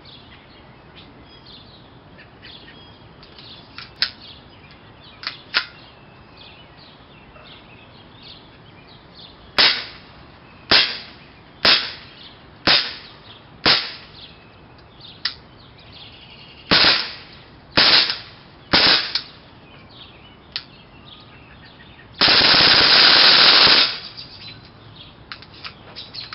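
KWA M93R gas blowback airsoft pistol, the old pre-NS2 model with a plastic slide, firing on propane: single sharp shots with the slide cycling, about one a second in two strings, after a few light clicks. Near the end comes a steady loud hiss lasting nearly two seconds.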